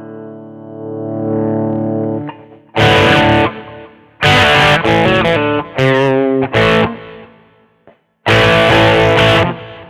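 Schecter Omen 6 electric guitar played through an effects patch with distortion. A held chord rings and fades, then loud chord stabs come in short blocks with gaps between them, with a downward run of notes in the middle.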